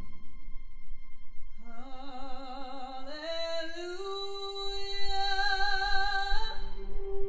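A woman singing unaccompanied after the orchestra breaks off: she comes in about a second and a half in with long held notes with vibrato, climbing in steps. A soft, low held note joins beneath her past the halfway point.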